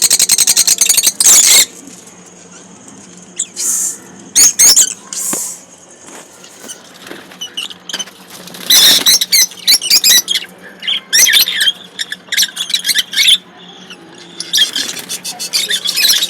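A flock of lovebirds chattering with shrill, rapid squeaks and chirps. The calls come in dense bursts, about a second in, around the middle, and most densely near the end, separated by quieter stretches.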